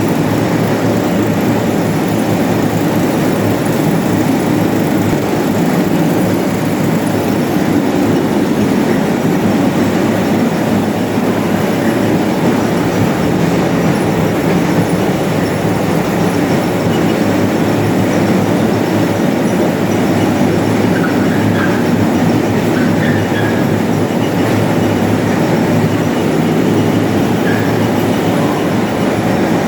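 OVS-25 self-propelled grain-cleaning machine running steadily after repair: a continuous, even mechanical noise with a low hum underneath.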